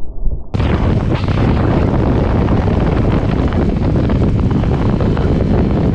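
Wind rushing over the microphone of a motorcycle riding at road speed, a steady noise with engine and road sound blended underneath. It starts muffled and turns full and bright about half a second in.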